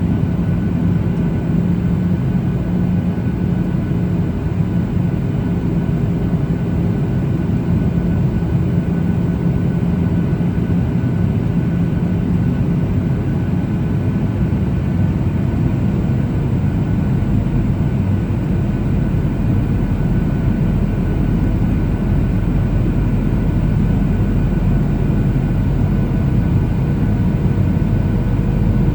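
Cabin noise inside a Boeing 737-800 in flight: the steady rumble of its CFM56 turbofan engines and the airflow. About halfway through, the engine hum changes, with a deeper drone coming in.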